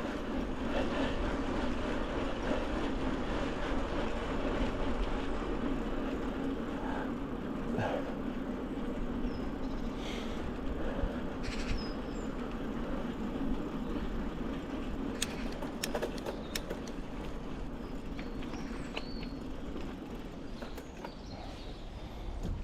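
Norco Storm mountain bike being ridden on a trail: a steady rolling rumble from the tyres and bike, with a few sharp clicks and rattles about two-thirds of the way through.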